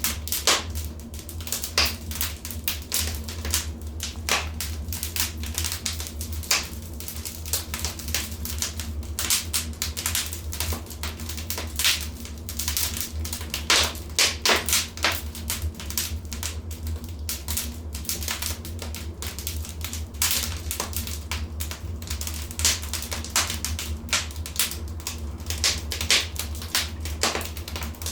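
Wood fire crackling: dense, irregular sharp pops and snaps, some louder clusters about 14 to 15 seconds in, over a steady low rumble of the flames.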